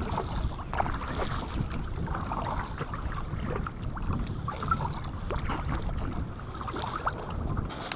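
Wind rumbling on the microphone, with small scattered clicks and knocks from the kayak and its gear.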